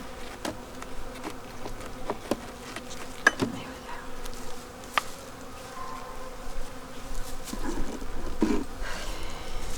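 Honeybees buzzing in a steady hum around an open hive. Sharp clicks and knocks come from wooden hive frames being handled. Near the end the buzz swells twice as bees fly close.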